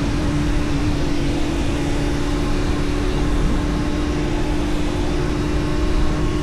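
Kawasaki Z900 inline-four with a full exhaust, running at a steady cruising speed, with wind rush on the microphone. The engine's pitch holds steady and creeps up slightly near the end.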